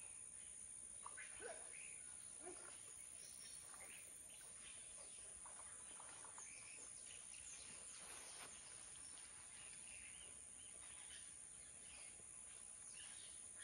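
Near silence in the woods: faint, scattered bird chirps over a steady high-pitched hiss.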